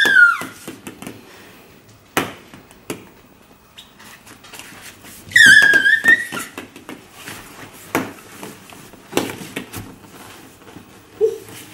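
A baby squealing with delight twice: a short falling squeal at the start and a longer high one about five seconds in. Between them, small hollow plastic play balls land and bounce on a wooden floor with a few light taps.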